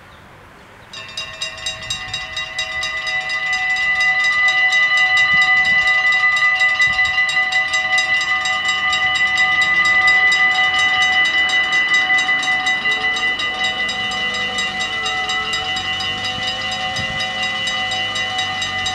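Warning bells of a Dutch automatic half-barrier (AHOB) level crossing start ringing about a second in, with rapid, even strokes and several pitches sounding at once, swelling over the first few seconds and then ringing on steadily. They signal that the crossing is closing for an approaching train.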